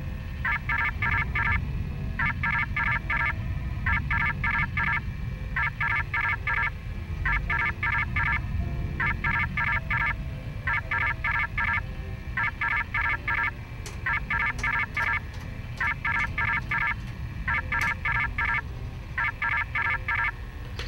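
Electronic alarm beeping. Short bursts of five or so rapid tones, like telephone dialling tones, repeat about every two seconds over a steady low rumble.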